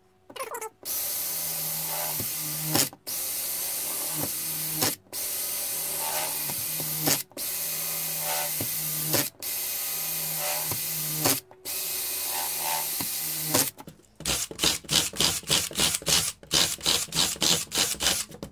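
Power drill with a 12 mm bit boring through the skins of a window frame profile. It runs steadily in stretches of about two seconds with brief breaks, then near the end it switches to rapid short pulses, about five or six a second.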